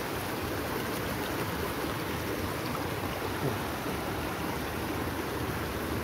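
Steady rushing of a fast-flowing stream in flood, an even wash of water noise.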